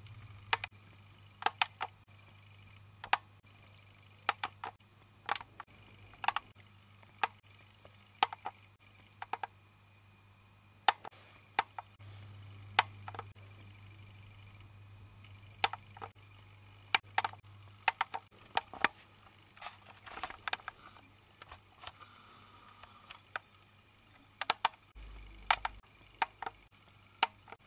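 Irregular sharp clicks and taps, one or two at a time every second or so, over a faint steady low hum.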